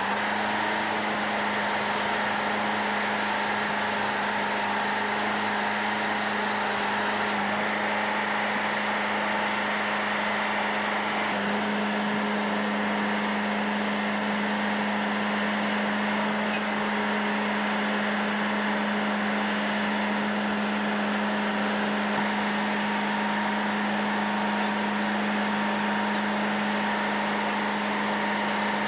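A machine's engine running steadily: a constant drone with a strong, even hum and no change in speed.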